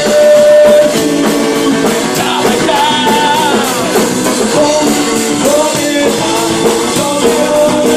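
A man singing into a microphone while strumming a cutaway acoustic-electric guitar, played live; the song opens on a held note.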